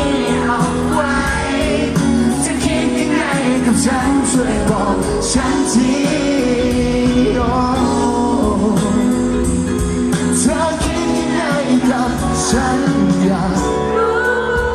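Live pop band playing a Thai pop song, with singing over it and drums and cymbals keeping the beat.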